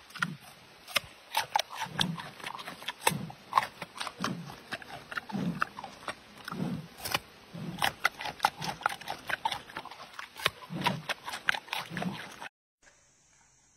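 Giant panda chewing a carrot with open-mouthed crunching and wet smacking, plus a low grunt-like sound about once a second with the chews. It cuts off suddenly near the end, leaving a faint hiss.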